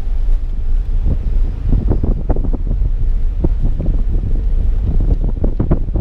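Wind buffeting the microphone in an uneven, gusty way in a moving car, over a steady low road rumble.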